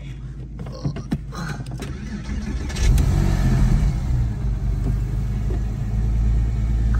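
2000 Porsche 911 Carrera 4's water-cooled 3.4-litre flat-six cold-starting: a few clicks, then the engine catches with a sudden jump in loudness about two and a half seconds in and settles into a steady idle.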